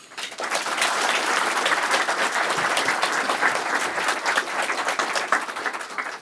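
Audience applauding: a dense patter of many hands clapping that builds up within the first half second and then holds steady.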